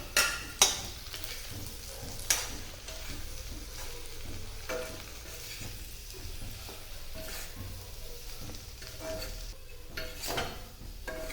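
Potato cubes frying in oil in an iron kadai, stirred with a utensil: a steady low sizzle with scattered knocks and scrapes of the utensil against the pan.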